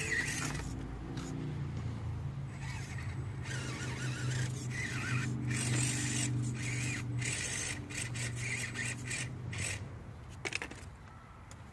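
1/10-scale Axial Barrage rock crawler's electric motor and gearbox whining at crawling speed, with repeated short higher-pitched squeals and scrapes as it works over the course; the sound drops away near the end.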